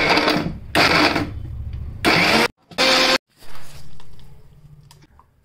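Electric mixer grinder grinding ginger into paste, run in short pulses. It runs, stops about half a second in, then comes on in three short bursts of about half a second each, and a last fainter run dies away.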